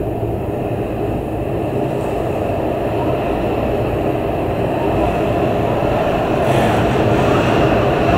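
Strong storm wind roaring steadily, growing slightly louder near the end.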